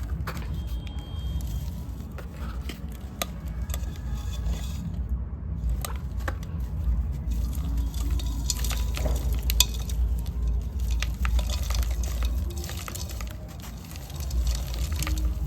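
Dry sand cylinders crumbling and being crushed by hand: a dense run of small crackles and crunches over a steady low rumble.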